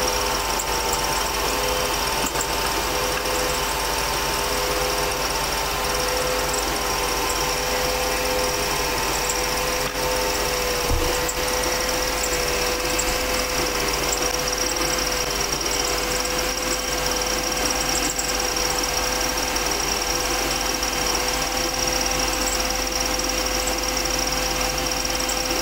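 Small wood lathe running steadily, its motor giving a constant hum with a high steady tone, while a red-lacquered rod spins against a lac stick and a polishing cloth. A single light knock about eleven seconds in.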